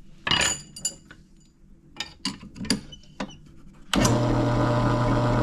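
A few sharp metal clicks and taps as a push rod is swapped in a drill press chuck, then about four seconds in the drill press motor switches on and runs with a steady hum, spinning the push rod to check it for wobble.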